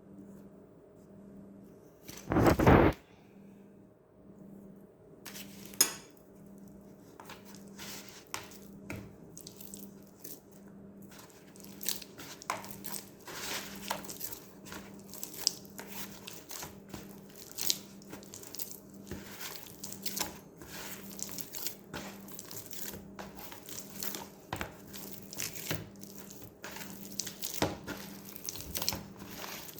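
Hands kneading softened butter into sticky bread dough for ensaymada: irregular wet smacking, squishing and tearing of the dough. There is one loud knock about two and a half seconds in and a smaller one near six seconds.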